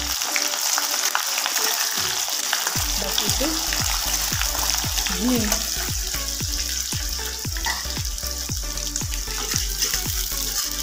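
Sliced onions sizzling steadily in hot mustard oil in an aluminium kadai, stirred with a spatula as they start to fry.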